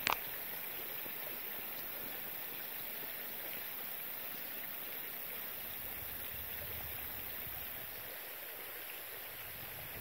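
Steady, even rushing outdoor background noise with no distinct events, and a brief click at the very start.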